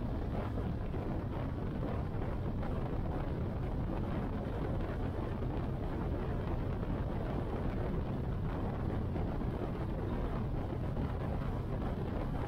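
Motorcycle riding steadily at highway speed: even engine note mixed with wind and road noise on the rider's microphone.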